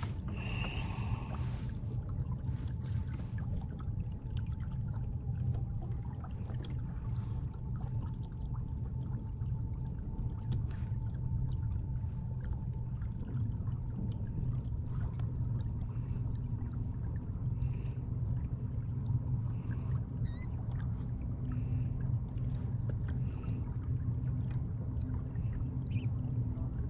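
Water sloshing and trickling along a kayak hull as it is pushed along by a Minn Kota C2 Endura 30 lb electric trolling motor, over a steady low rumble. A faint thin hum from the motor runs under it, running smoothly and quietly.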